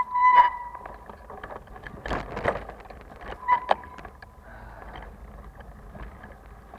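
Heavily loaded touring bicycle ridden over a bumpy dirt singletrack: rattles, clicks and a jolt from the bike and its bags over rough ground. Short high squeals, typical of the brakes, come at the start and again about three and a half seconds in.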